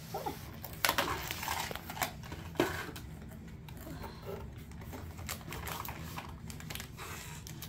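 Plastic snack wrapper on a pack of chocolate sandwich cookies crinkling and crackling in irregular small clicks as it is worked open by hand, with a few sharper snaps in the first three seconds.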